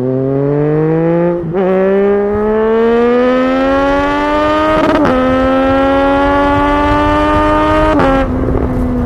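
Triumph Street Triple 765 inline three-cylinder engine accelerating hard, its pitch climbing through the gears with quick upshifts about one and a half seconds in and about five seconds in. Near the end the pitch steps down again and holds steady.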